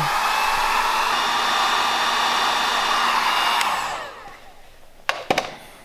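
Electric heat gun running with a steady blowing hiss and a faint whine while it shrinks heat-shrink tubing over a soldered wire splice. It is switched off after about three and a half seconds and spins down, and two sharp clicks follow near the end.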